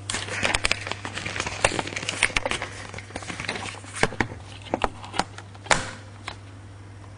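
Handling noise of a hand-held video camera being moved about: scattered clicks and knocks over rustling, with a steady low hum underneath. The knocks stop about six seconds in, leaving only the hum.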